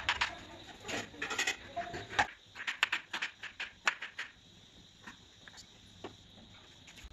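Kitchen knife chopping on a bamboo cutting board: irregular sharp knocks of the blade on the wood as tomato and then garlic are cut. The knocks are dense in the first four seconds, then thin out to a few light taps.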